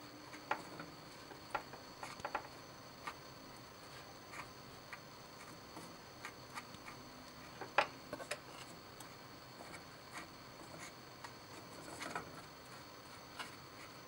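A rod stirring and prodding the glowing charge in a ceramic crucible: faint, irregular clicks and scrapes of the rod against the crucible and the hot contents, about one or two a second, the sharpest a little past the middle.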